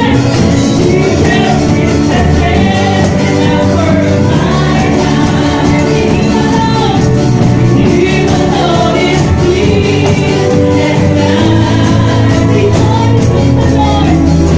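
Upbeat Christian worship song with singing over a band and a steady beat, with tambourine jingles shaken in time.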